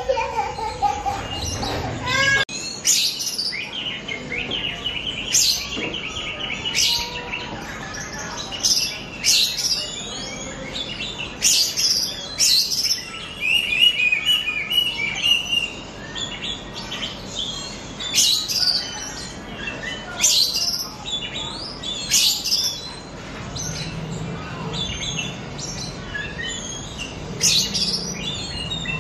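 Oriental magpie-robin (kacer) song: loud, sharp high notes repeated about every one to two seconds, with rapid trilling phrases in between.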